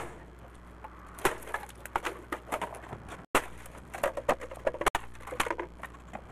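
Wooden acoustic guitar being smashed against a concrete block, then its broken pieces knocked and trodden on: a string of sharp wooden cracks and knocks with splintering.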